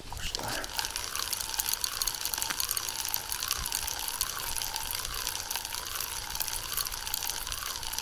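Spinning reel on a feeder rod being cranked steadily to wind in line. It makes a whirr whose pitch swells and falls about one and a half times a second, once per turn of the handle, over fine clicking. The line is being retrieved after the rig snagged on a sunken log.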